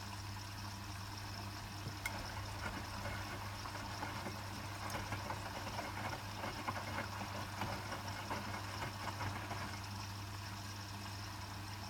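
Hotpoint WMFUG 942 washing machine in its second rinse: a steady low motor hum, with water splashing and sloshing in the drum starting about two seconds in and dying away near the end.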